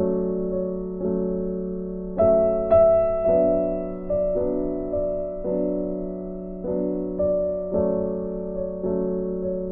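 Slow, gentle background music on piano or electric piano: sustained chords with a new soft note or chord struck about once a second, each fading away.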